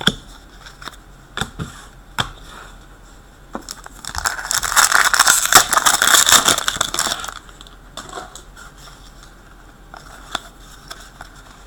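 Foil trading-card pack wrapper being crinkled and torn, a loud crackling that lasts about three seconds in the middle, with a few sharp clicks of cards being handled before it.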